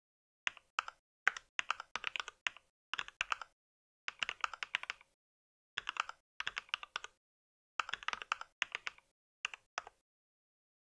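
Typing on a mechanical keyboard: quick runs of keystroke clicks with short pauses between the runs, starting about half a second in.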